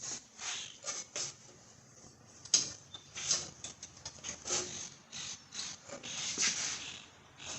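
Irregular metallic clicks and rattles of hand tools and parts being worked on a riding lawnmower, with one sharp knock about two and a half seconds in.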